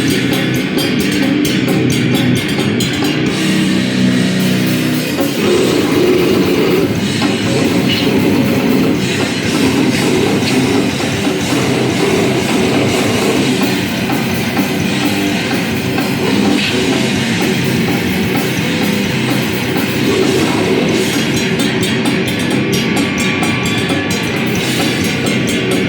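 A heavy rock band playing loud and without a break: distorted electric guitar and a drum kit.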